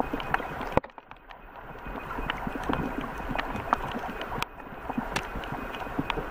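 Underwater ambience heard through a waterproof camera's body: a steady dull rush of water with scattered sharp clicks and crackles. It drops low about a second in and builds back up.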